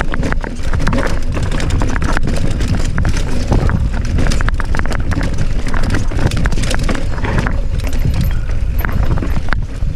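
Mountain bike descending a rocky trail: tyres, chain and frame rattling and knocking over rocks in a quick, irregular clatter over a steady low rumble.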